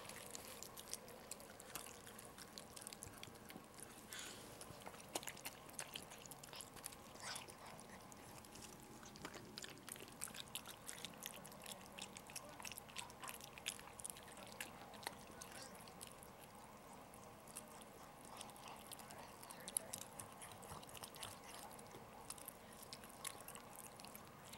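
Faint wet licking and smacking as a Maltese mother licks and cleans her newborn puppy, many small irregular clicks throughout.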